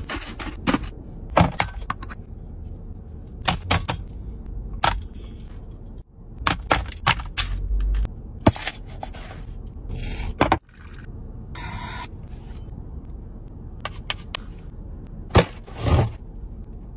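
A spoon scraping and clicking against a round aluminium tray as crisp kunafa is scooped from it, in a run of short, sharp scrapes and clicks.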